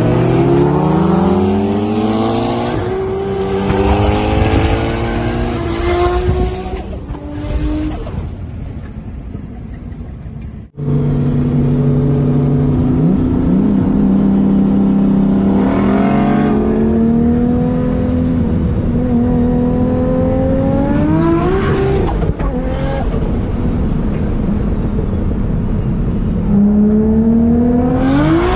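Turbocharged 2.6-litre stroker RB25 straight-six of an R33 Skyline GTS-t under hard acceleration, its revs climbing over the first few seconds and then falling away. After a sudden break it runs at steady revs and climbs again three times.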